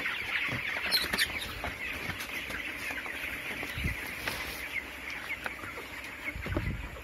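A flock of 22-day-old broiler chickens keeping up a steady chorus of clucks and chirps. A dull low thump comes about four seconds in, and a low rumble near the end.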